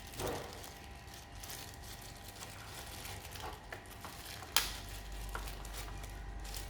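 Light handling noises of unpacking a small boxed product: faint rustling and small clicks, with one sharp click about four and a half seconds in.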